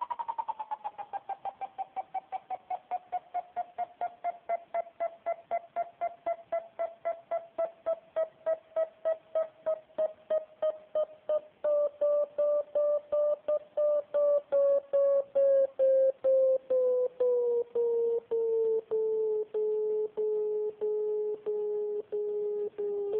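FrSky Taranis radio transmitter's variometer tone: a string of rapid electronic beeps that start high and fall steadily in pitch while the beeps lengthen and the gaps shrink, until it is an almost unbroken low tone near the end. This is the vario's audio for a climb rate being lowered from a strong climb toward zero and sink, driven here by the elevator channel.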